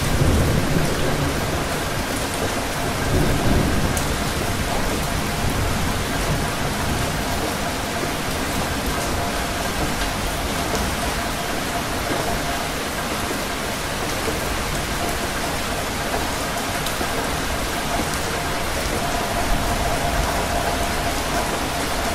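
Steady rain falling, with a low rumble of thunder in the first few seconds.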